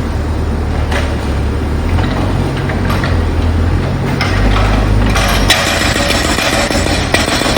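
Roadworks breaking up the ground: a heavy engine runs steadily, and about five and a half seconds in a harsher, rapid clatter of breaking at the ground takes over.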